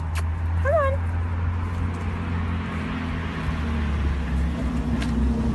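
Steady low outdoor rumble with a faint hiss, and one short high-pitched vocal glide about a second in.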